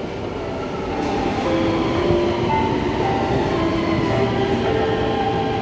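Taipei Metro C321 high-capacity steel-wheel metro train pulling into the platform: a steady rumble of wheels on rail, with several whining tones that shift in pitch.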